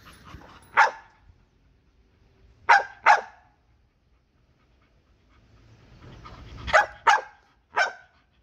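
Bull terrier barking in short barks, six in all: one, then a quick pair, then a pair and one more near the end. These are protest barks aimed at its owner.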